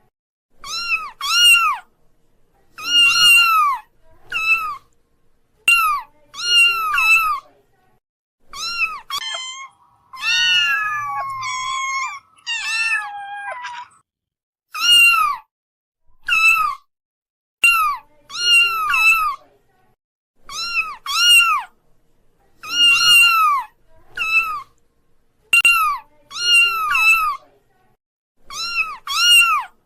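Kittens meowing again and again: short, high, arching mews, often two in quick succession, with a longer, wavering run of overlapping calls about nine to fourteen seconds in.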